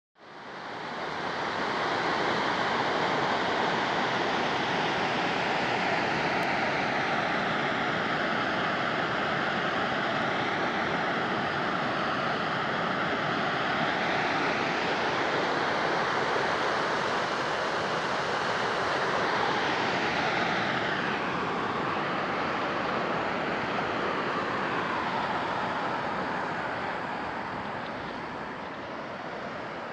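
Steady rush of water pouring over a small waterfall on a mountain stream, fading in at the start and a little softer in the last few seconds.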